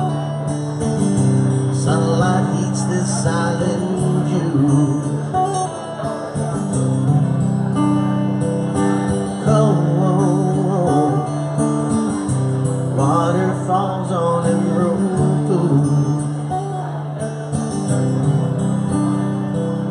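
Live band playing an instrumental break in a song, with guitar over a steady bass line.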